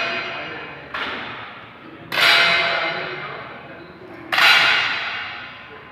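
Air gun shots on a match range: three sharp cracks a second or two apart. Each is followed by a ringing tail that fades over about a second and a half.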